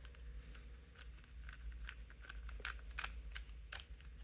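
Faint, irregular small clicks and scrapes of a small Torx screwdriver working a stuck screw out of an Xbox One controller's plastic housing.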